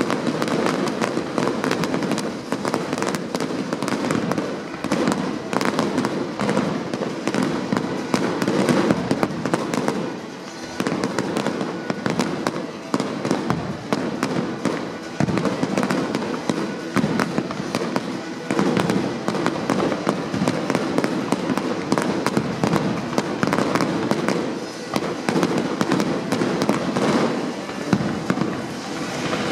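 Professional fireworks display firing a dense barrage: rapid, overlapping bangs of shells and ground-fired cakes with continuous crackling, easing briefly about ten seconds in.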